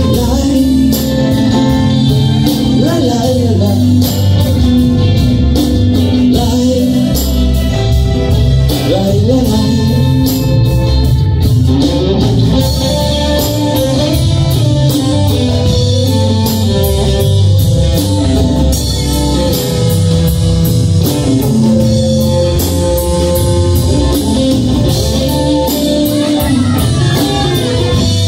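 Live band playing a rock song: a singer over acoustic and electric guitars, electric bass, congas and drum kit.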